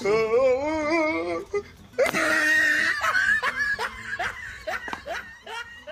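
Wordless vocal sounds: a long wail with a wavering pitch, then a run of short breathy pulses about three a second.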